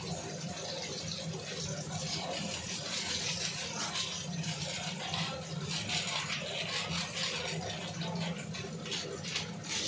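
Potato pieces sizzling steadily as they fry in oil in an aluminium karahi, with a steady low hum underneath.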